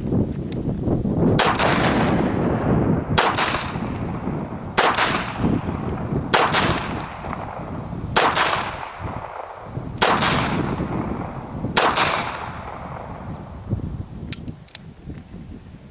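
Semi-automatic pistol fired seven times at a slow, even pace, about one shot every 1.8 seconds, each report followed by a trailing echo. A few light clicks come near the end.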